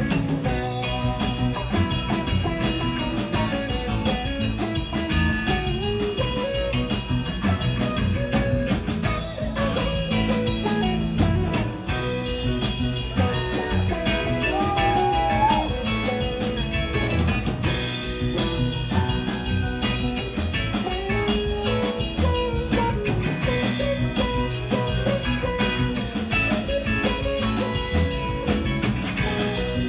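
Live rock band playing: drum kit, electric bass, guitar and keyboards, with melodic lead lines wandering over a steady groove.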